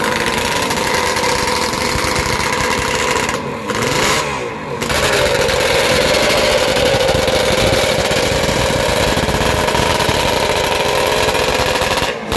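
Kawasaki H1R 500 two-stroke triple racing engine running on its stand, revved up and let fall back a couple of times about three to five seconds in, then held at a steady fast idle.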